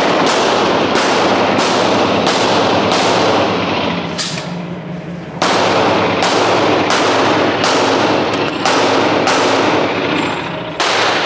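A rapid series of gunshots, about one every 0.6 seconds, with a pause of about two seconds near the middle. A dense wash of sound fills the gaps between the shots.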